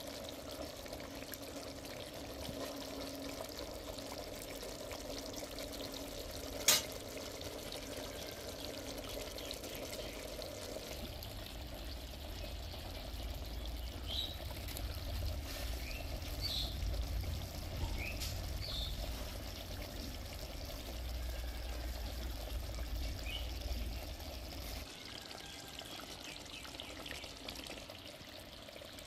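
Thick dark sauce simmering and bubbling in a wok around a slab of fried pork belly, with one sharp tap about seven seconds in.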